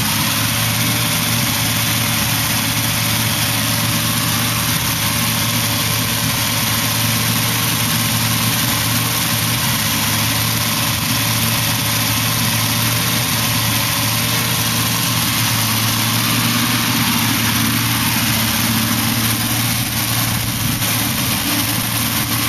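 Carbureted car engine idling steadily, with no revving. It is heard through a poor camera microphone that adds heavy hiss.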